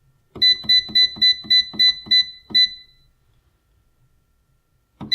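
Bread machine's control-panel beeper chirping with each button press while the jam program is being set: about eight short, high beeps, each with a soft button click, in quick succession. A single beep follows near the end.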